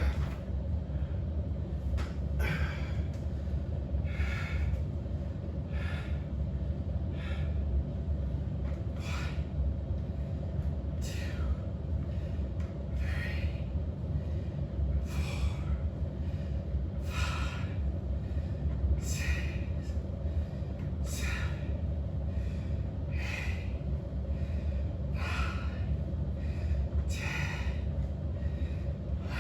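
A man breathing hard from exertion during an exercise set: short, forceful breaths through the nose and mouth, about every two seconds, in time with his reps.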